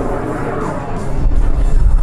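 Music played over loudspeakers, mixed with the rumble of a TS-11 Iskra jet trainer's turbojet passing overhead.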